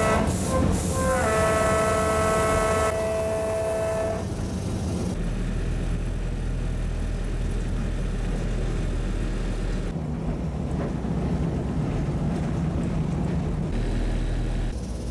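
Train horn sounded from the driver's cab, a chord of several steady tones: the end of one blast, then a second held about three seconds. After it, the train's engine running with a steady low rumble.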